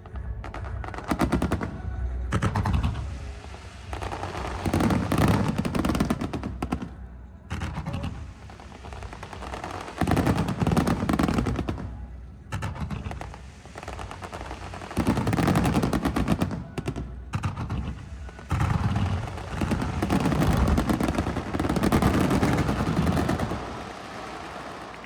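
Fireworks barrage: rapid strings of shells bursting and crackling in dense, machine-gun-like volleys that surge several times and ease off near the end.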